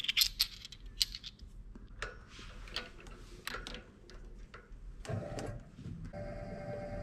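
Metal grip parts of a tensile testing machine clicking and clinking as they are handled and fitted together around the specimen, in a series of short, irregular clicks. About five seconds in a low rumble starts, followed by a steady hum of sustained tones.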